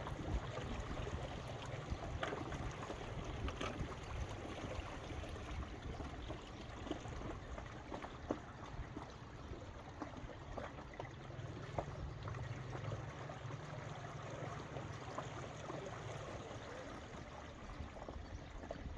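Wind rumbling on the microphone over a steady wash of small waves lapping, with scattered faint ticks and splashes.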